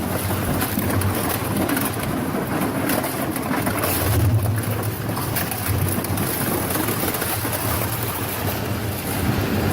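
Heavy machine running: a steady grinding noise over a low hum that swells now and then.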